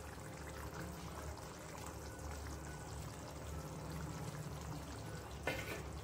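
Curry gravy bubbling at the boil in an aluminium pan as boiled eggs are set into it, over a low steady hum. A single short knock near the end.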